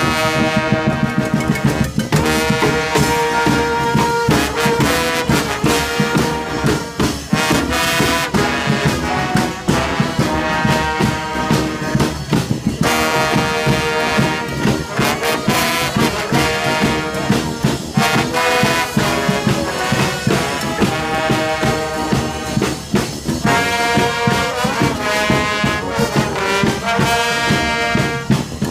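Street brass band playing a lively tune, with trombones and trumpets carrying the melody.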